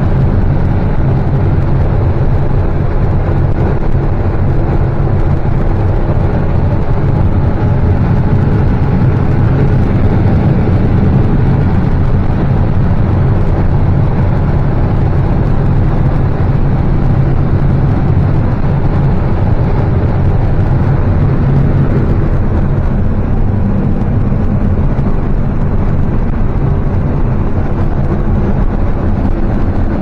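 Combine harvester running under load while harvesting corn, heard from inside the cab: a loud, steady low drone from the engine and machinery.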